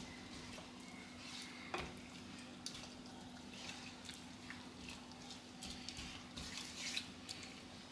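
Faint soft clicks and scrapes of a wooden spoon stirring a thick vegetable and peanut butter sauce in a saucepan, the liquid sauce gently stirring and simmering, over a faint steady hum.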